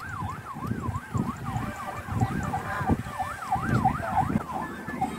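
Electronic siren wailing in a fast yelp, its pitch sweeping up and down about two to three times a second, over a low rumbling background.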